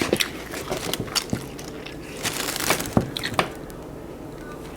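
Scattered small clicks and crinkles of takeout food and its packaging being handled, dying down after about three and a half seconds.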